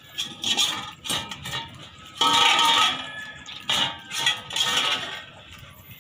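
A half-Belgian Malinois puppy licking out a stainless steel bowl, its tongue and muzzle knocking the metal bowl so it clinks and scrapes in irregular bursts about once a second. The longest and loudest clatter comes about two seconds in.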